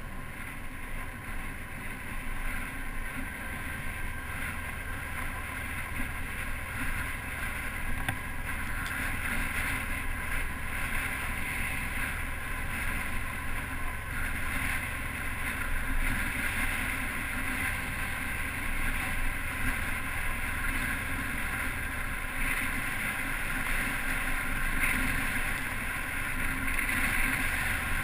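Motorcycle engine running steadily under wind rushing over the camera microphone as the bike rides along, slowly getting louder.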